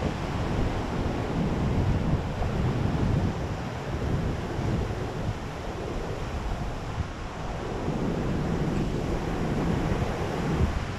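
Wind gusting on the microphone over the steady rush of surf breaking on a rocky shore.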